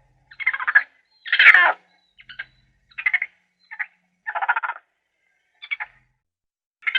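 A series of about eight short, raspy animal calls at irregular intervals, the loudest about a second and a half in.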